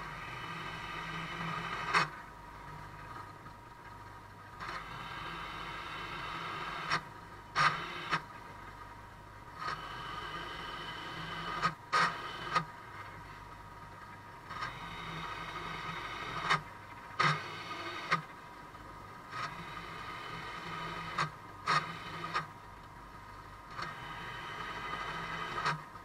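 Drill press running steadily while drilling a series of holes through an aluminium router insert plate: stretches of about two to three seconds of bit cutting metal, separated by sharp knocks as the plate is shifted on the table between holes.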